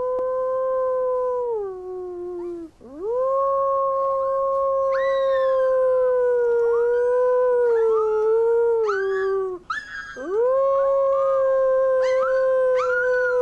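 Howling, with a 4-week-old wolf pup among the voices: a steady lower howl held in three long notes, each falling away at its end, while a higher-pitched, wavering howl slides up over it several times.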